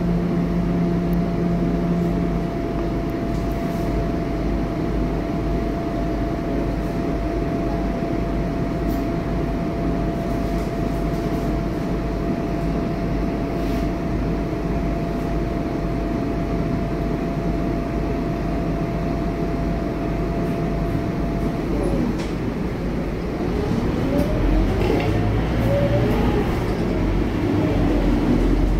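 Scania K230UB bus's rear-mounted five-cylinder diesel idling at a standstill, heard from inside the cabin as a steady hum with a faint constant whine over it. About 24 seconds in the hum grows louder, with rising tones, as the bus pulls away.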